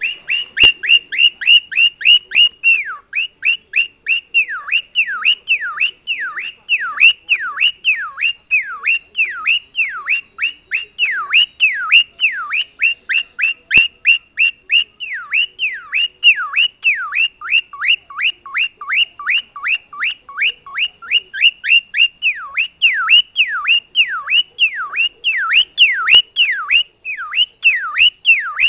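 Cockatiel whistling an imitation of a car alarm: an unbroken run of loud falling whistles, quick short ones at first, then longer downward sweeps at about two a second.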